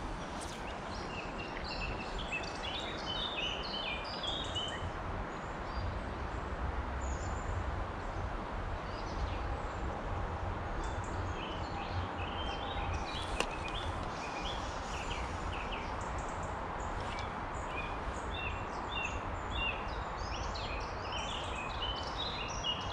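Small birds chirping and singing in repeated short high notes, in bursts through much of the time, over a steady outdoor background hiss with a low rumble.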